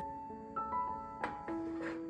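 Instrumental music: a melody of single held notes stepping from one pitch to the next, with two light percussive hits in the second half.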